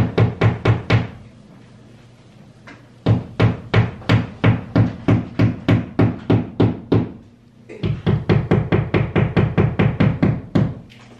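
Small hammer tapping a nail into a wall with quick, light, even strikes, about four a second. The strikes come in three runs: one ending about a second in, a long run from about three to seven seconds, and another from about eight seconds until near the end.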